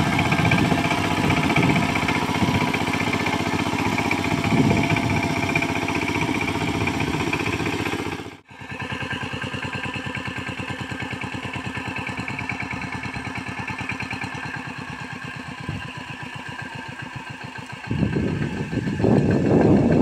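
Two-wheel power tiller (walking tractor) with iron cage wheels working a flooded paddy field, its single-cylinder engine running steadily under load. The sound drops out for an instant about eight seconds in, and the engine's even beat carries on. Near the end a louder rushing noise joins it.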